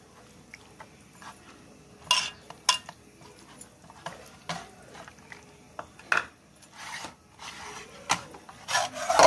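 Hands rubbing a thick yogurt-and-spice marinade into a whole chicken in a steel bowl: wet squishing and handling, with a scattered series of sharp clicks and knocks against the bowl starting about two seconds in.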